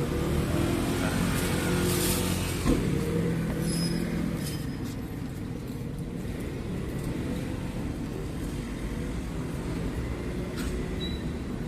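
Road traffic: a motor vehicle's engine runs close by, loudest over the first few seconds, then settles into a steadier, quieter traffic hum. There is a single sharp click about two and a half seconds in.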